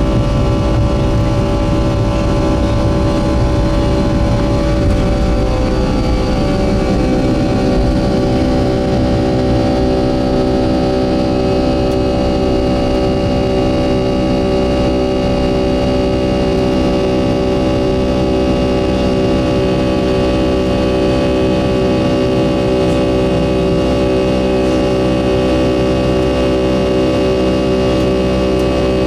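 Boeing 757-200's Pratt & Whitney PW2000 turbofans at takeoff thrust, heard inside the cabin beside the engine: a steady chord of engine tones over a rough rumble from the runway. The rumble stops about seven seconds in as the aircraft lifts off, and the engines run on evenly through the climb.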